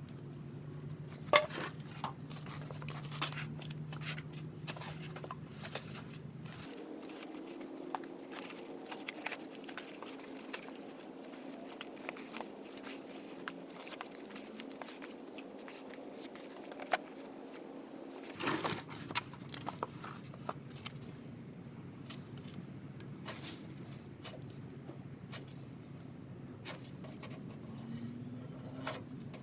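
Body filler being mixed and spread with a plastic spreader: scattered scrapes, clicks and wet squishes over a low steady hum that changes abruptly twice, at cuts about 7 and 18 seconds in.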